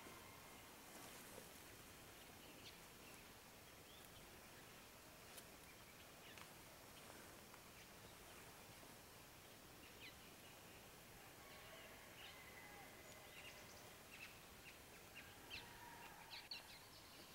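Near silence: faint outdoor background hiss with a few scattered, faint bird chirps.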